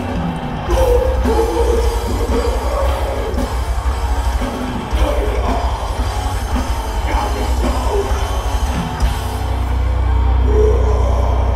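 Metal band playing live: distorted electric guitar, bass guitar and drums, with shouted vocals. About nine seconds in the fast drumming stops and a low chord rings on.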